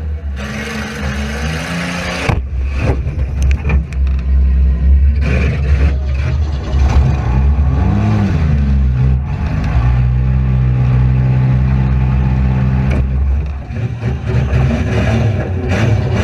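Front-wheel-drive demolition derby car's engine revving hard, its pitch climbing and dropping as the driver works the throttle, held high for a few seconds past the middle. A few sharp knocks and rattles come about two to four seconds in.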